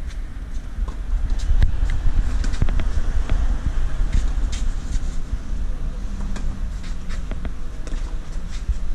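Tennis rally on a clay court: racquets strike the ball as sharp knocks every second or so, over a steady low rumble.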